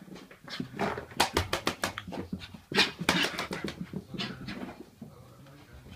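Puppy doing zoomies: a fast run of sharp clicks and thumps about a second in, then a louder burst of dog noise near the three-second mark and scattered smaller sounds as it runs about.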